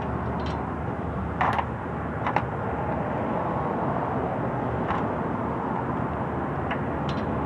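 Hand tools being worked on the buggy's bolts: a few sharp metal clicks and clinks, the strongest about one and a half seconds in, over a steady rushing background noise.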